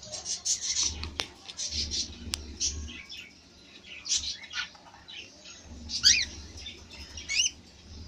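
Cockatiels chirping: a rapid run of short, high chirps, with two longer wavering calls about six and seven and a half seconds in.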